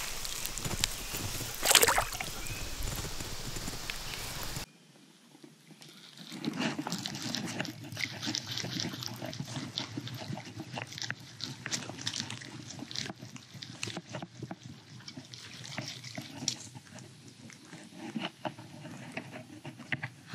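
Water sloshing at the pond's edge as a largemouth bass is released, with one loud splash about two seconds in. After a sudden change, a long run of irregular small crackles and splashes follows while a second small bass is brought to the bank.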